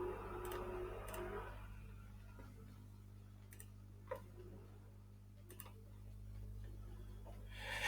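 A few sharp, isolated computer mouse clicks spaced a second or more apart over a steady low electrical hum, with a loud breath into the microphone near the end.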